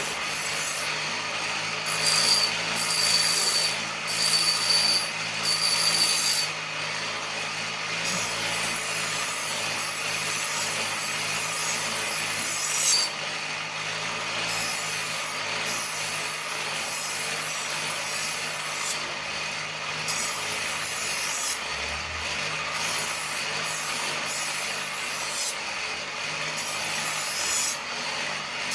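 Household knife blade scraped repeatedly against a sharpener in uneven strokes, a few of the early strokes carrying a high metallic ring.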